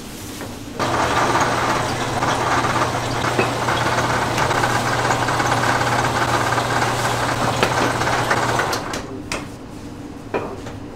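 A motor-driven machine starts about a second in, runs steadily with a constant low hum, then stops after about eight seconds.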